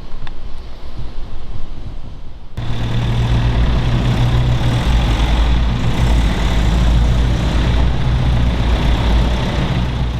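Supercharged MG inline four-cylinder engine running steadily at idle. It cuts in suddenly about two and a half seconds in, after a faint low rumble.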